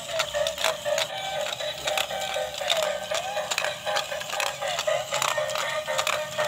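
Electronic dance tune with a quick, steady beat and a wavering melody, thin and with no bass, played through the small built-in speaker of a battery-powered dancing octopus robot toy.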